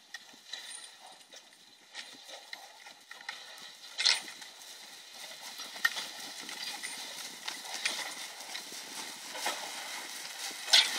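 Hoofbeats of a pair of Norwegian Fjord horses pulling a sleigh over snow, an irregular patter of muffled strikes that grows louder as the team comes near.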